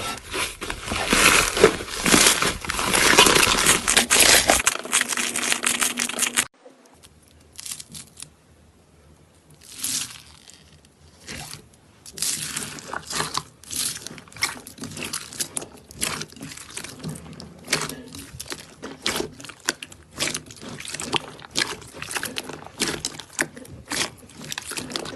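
Close-miked ASMR crackling and crunching. It is dense and loud for about the first six seconds, then cuts off suddenly to sparse, quieter clicks and pops that grow busier again from about twelve seconds in.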